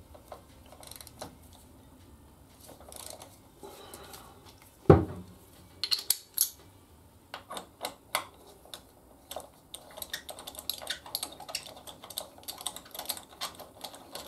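Hand tools working a motorcycle brake caliper bolt: metallic clinks and clicks, with one sharp knock about five seconds in, then a run of quick small clicks through the second half.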